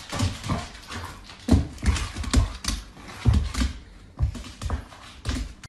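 A dog's paws thudding and scrabbling on a hardwood floor as it leaps and pounces, in irregular thumps a few times a second.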